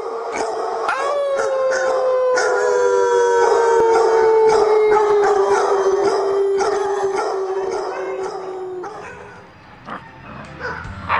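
A dog howling in one long howl that lifts about a second in, then slowly falls in pitch and stops near the end, with other dogs barking and yipping around it.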